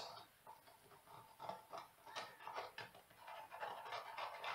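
Pencil scratching on a wood blank in short, irregular strokes, tracing a line around the inside of a bowl ring.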